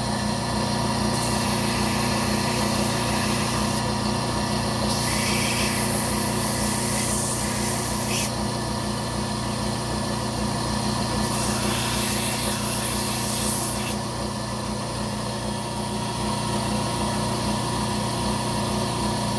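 Belt sander running steadily, with three stretches of grinding hiss as the knife's handle and bolster are pressed free-hand against the moving belt.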